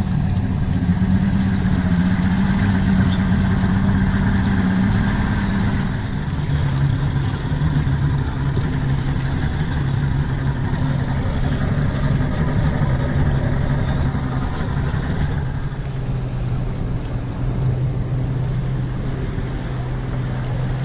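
An engine running steadily with a constant hum, its pitch stepping lower about six seconds in and again near sixteen seconds.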